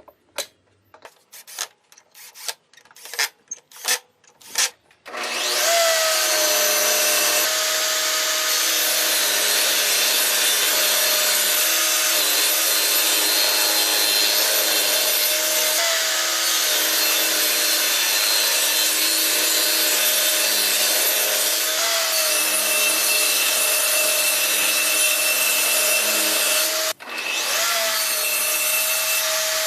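A few sharp knocks of wood, then a table saw starts about five seconds in and runs with a steady whine, its pitch sagging and recovering a few times as it cuts wood. Near the end it cuts out for a moment and comes straight back.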